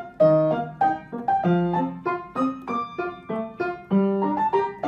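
Background piano music: a lively melody of short struck notes, about two to four a second.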